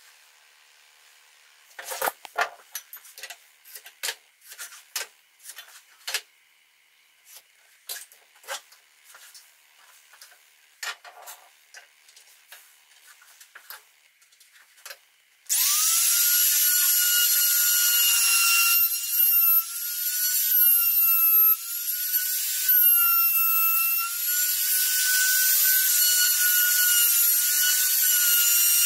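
Scattered light knocks and clicks as a square and pencil are handled on a plywood board. About halfway through, a compact trim router switches on, spins up to a steady high whine and keeps running, its pitch dipping briefly a few times under load as it cuts a slot in the board.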